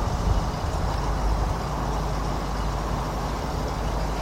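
2003 Jeep Liberty's 3.7-litre V6 idling as a steady, uneven low rumble. It runs very rough with a severe misfire.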